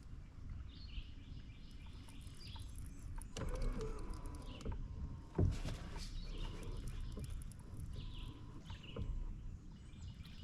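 Ambient sound from a kayak on the lake: a steady low rumble and a bird chirping repeatedly. A single sharp knock, the loudest sound, comes about five and a half seconds in.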